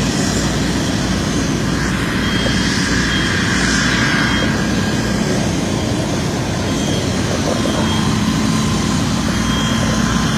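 Diesel engines of fire trucks running at a working fire, a steady, loud drone with a low hum that does not change.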